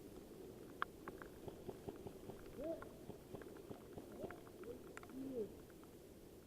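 Rain pattering on gear: scattered sharp ticks over a steady low hiss. Several short rising-and-falling hoot-like calls come in the middle.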